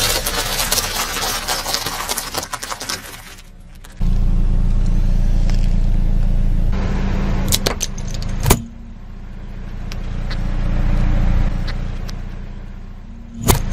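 Car tyre rolling over a bag of dry pasta shells, the pasta crunching and crackling for the first three seconds or so. From about four seconds the car's engine runs with a steady low hum that swells and fades, with a few sharp snaps around eight seconds and again near the end.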